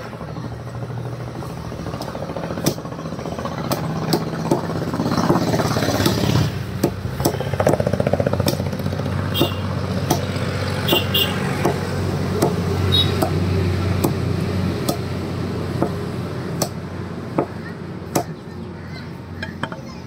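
Butcher's cleaver chopping chicken pieces on a wooden block, sharp chops roughly once a second, over a steady low hum.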